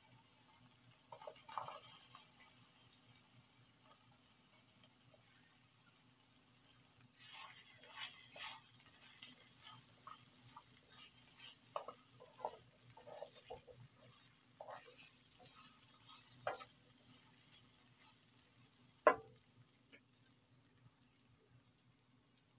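Onion masala and diced vegetables sizzling in oil in a frying pan, with a spatula stirring and scraping against the pan in bouts. There is one sharp knock on the pan near the end.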